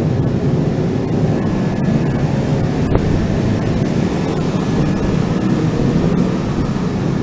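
Steady wind rumble and rolling noise on the microphone of a handlebar-mounted camera on a moving road bicycle.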